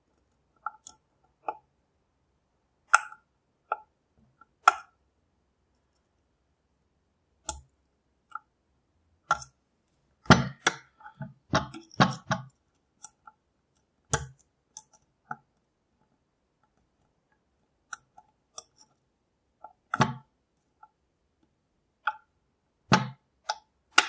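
Irregular metallic clicks and taps of lock picks working in the cylinder of a GMG multi-point lock. There is a denser run of clicks about ten to twelve seconds in.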